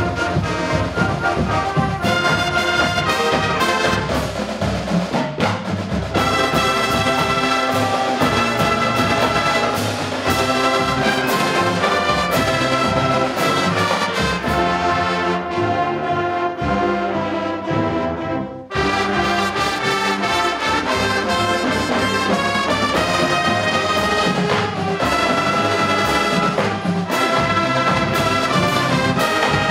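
High school instrumental ensemble playing, with brass prominent. The sound thins out for a few seconds past the middle, then the full ensemble comes back in sharply.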